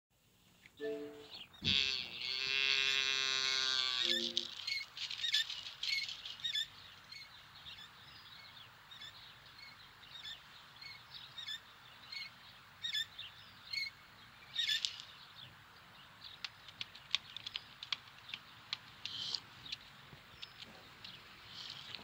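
Sound-effects track: a few short stepped tones, then a loud buzzy tone lasting about two seconds and a few more stepped tones. After that, many small bird chirps come at irregular intervals over a faint outdoor hiss.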